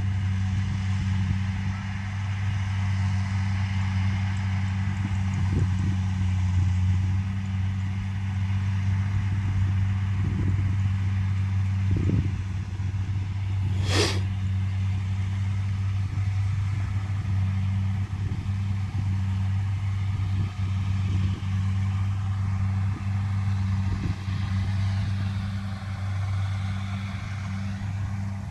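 Kubota DC70 combine harvester's diesel engine running steadily under harvesting load, a constant low drone. A single sharp click about halfway through.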